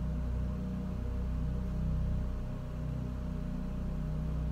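Low, steady rumbling drone with a faint hum above it.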